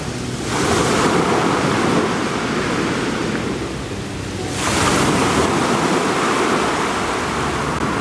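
Sea waves breaking and washing up a pebble beach, surging twice: about half a second in and again about four and a half seconds in.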